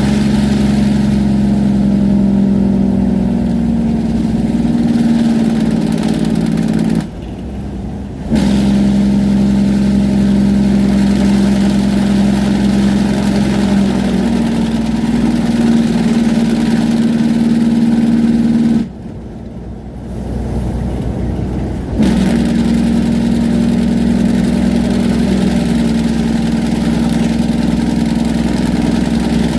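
Semi-truck diesel engine brake (Jake brake) rumbling steadily on a downhill grade, heard through a newly repaired muffler. It cuts out sharply twice, briefly about seven seconds in and for about three seconds around nineteen seconds in, then comes straight back on.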